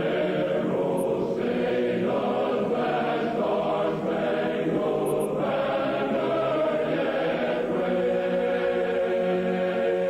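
Choral music: voices singing slow, sustained chant-like chords that shift every second or two.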